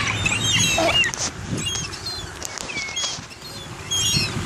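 A flock of gulls calling overhead: many short, high, squealing calls overlapping one another.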